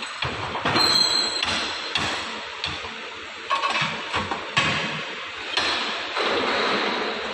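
Irregular metal clanking and knocking with a few short metallic rings, from chain grate parts being handled and fitted into the furnace.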